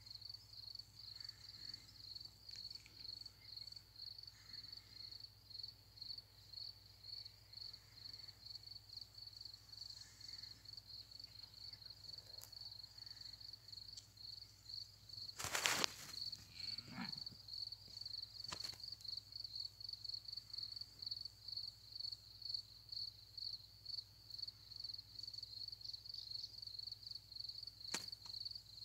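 Faint crickets chirping in a steady high-pitched rhythm, about three chirps a second. A brief loud noise comes about halfway through, and a sharp click near the end.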